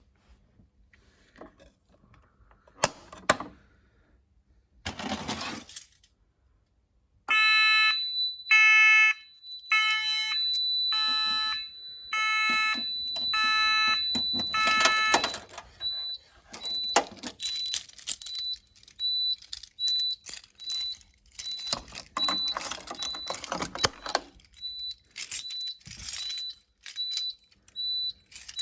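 A fire alarm sounder comes on about a quarter of the way in and sounds a pulsed tone about once a second for some seven seconds, over a steady high-pitched beep. Once the sounder stops, the high-pitched beep carries on as short beeps, about three every two seconds. Clicks and rustling from handling are heard throughout.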